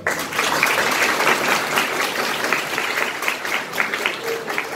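A roomful of students applauding: clapping that starts all at once, dense at first, then thins to scattered separate claps near the end.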